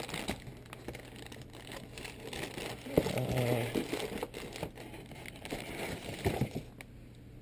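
Plastic air-bubble packing bag crinkling and rustling as it is handled, with many small irregular clicks and crackles.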